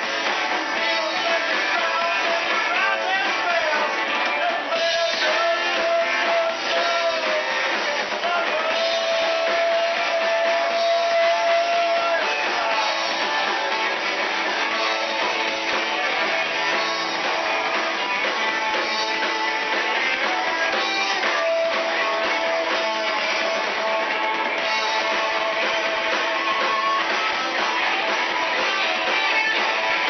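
A live band playing continuous upbeat music, with guitar to the fore and several long held notes ringing over the backing.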